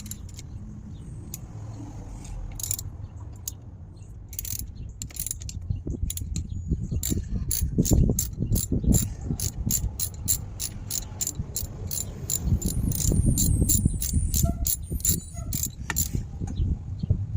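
Ratcheting hand tool with a Torx bit clicking in a quick, even run, about three to four clicks a second, as it backs out the screw holding the motorcycle's handlebar mirror mount. Handling knocks and rumble come with it.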